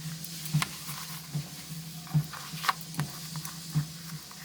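Handling of an undyed leather A6 planner cover: a few short taps and soft rubbing sounds over a steady low hum.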